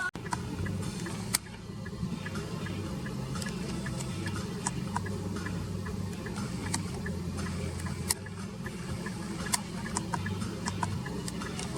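Steady low hum of a car engine idling, heard from inside the cabin, with scattered short clicks and ticks.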